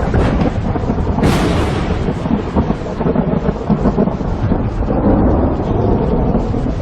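Violent thunderstorm: a continuous heavy rumble of storm wind and rain, with a brief louder rush about a second in.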